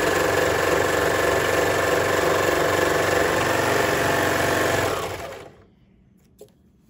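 Baby Lock Imagine serger running at a steady speed, stitching a seam in sheer fabric and running on to chain off the thread, then stopping about five and a half seconds in.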